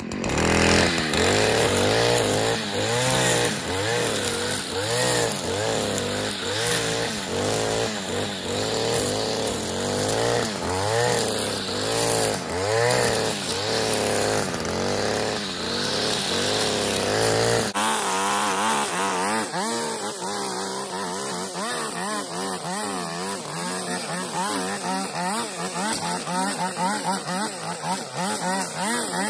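Petrol brushcutter running and revving up and down in repeated swells as it cuts through brambles and long grass. About two-thirds of the way in the sound changes abruptly to a steadier, higher run.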